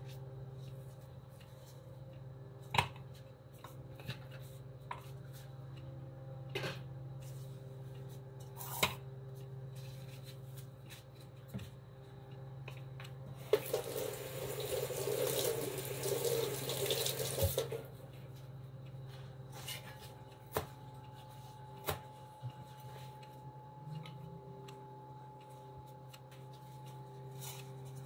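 Kitchen tap running for about four seconds midway while a bunch of coriander is rinsed under it. Before and after, scattered light knocks and clicks of things set down on the counter, over a steady low hum.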